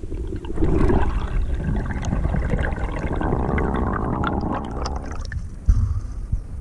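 Underwater bubbling and gurgling with many small clicks, heard on a camera submerged in the water. It fades as the camera rises, and a sharp thump comes as it breaks the surface near the end.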